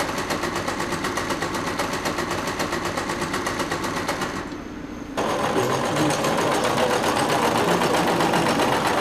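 Electric sewing machine running at speed, stitching cloth with a rapid, even needle rhythm. It drops off briefly a little after halfway through, then runs again, louder.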